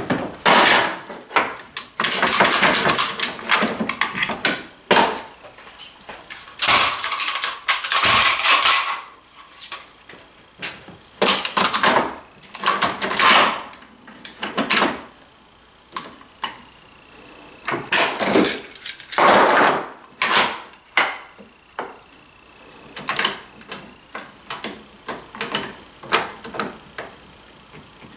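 Hands working metal clamps against a wooden board on a workbench: clatter, clicks and scraping of clamp parts and wood against the aluminium rail, in bursts with short quieter pauses, while a spliced board is clamped up.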